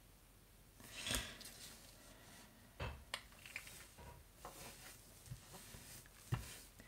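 Faint handling sounds from card and paper being moved about on a glass craft mat: a few light taps and small clicks with soft rustling between, the firmest tap about a second in.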